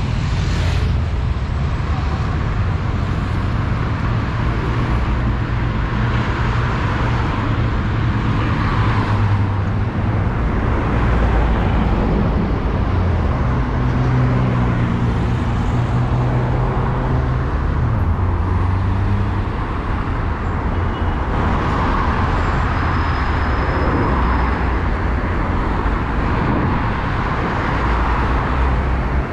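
Road traffic: cars passing close by, a steady rush of tyre noise and engine hum, with an engine's low hum standing out about halfway through.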